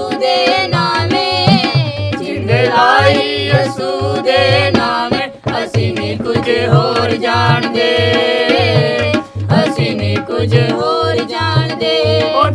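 A family of male and female voices singing a Punjabi Christian devotional song together, over a drum keeping a steady beat.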